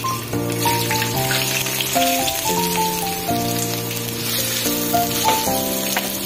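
Diced onions sizzling in hot oil in a pan, the sizzle starting as they are tipped in and then stirred with a spatula. Background music of slow, sustained chords plays over it.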